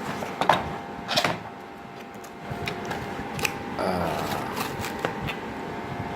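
Keyboard packaging being opened by hand: a handful of sharp clicks and taps, the loudest about a second in, and a brief scratchy rustle of packaging just before the middle.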